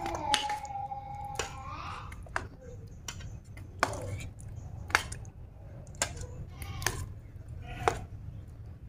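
Metal spoon clinking and scraping against stainless steel mixing bowls, about once a second, as round tofu balls are dipped in batter and rolled in flour.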